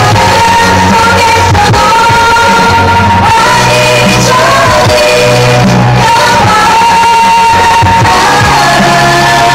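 Girl group singing a pop song live into handheld microphones, amplified through stage speakers over loud backing music. The held sung melody notes glide between pitches over a steady bass line.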